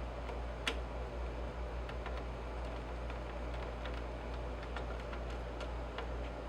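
Light, scattered clicks and ticks of small tools and parts being handled in a circuit-board repair, with one sharper click near the start, over a steady low electrical hum.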